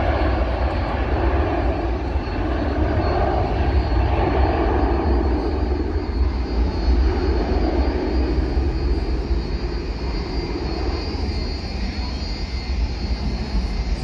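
Jet engines of a widebody airliner running on the runway as a steady rushing roar that eases off in the second half. Wind buffets the microphone with a heavy low rumble throughout.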